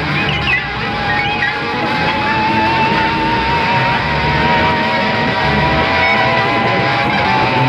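Blues-rock band playing: an electric guitar holds one long, wavering high note over bass and drums.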